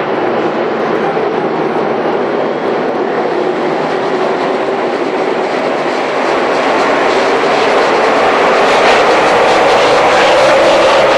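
The NASCAR Cup field's pushrod V8 engines running together as the pack rolls past in formation behind the pace car, coming to the green flag, getting louder about halfway through.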